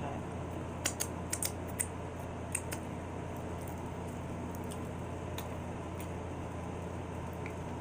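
A quick run of sharp, crisp crunches about a second in, lasting under two seconds, as nacho tortilla chips are bitten and chewed. A steady low hum runs underneath.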